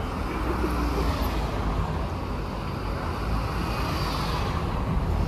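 Street traffic with a steady low rumble; a passing vehicle's tyre and engine noise swells and fades about four seconds in.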